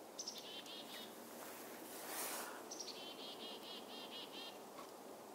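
Northern hawk owl calling: a short run of quick, high notes near the start, then a longer trill of about ten notes, some five a second, from about three seconds in. Wind hiss on the microphone, with a gust between the two calls.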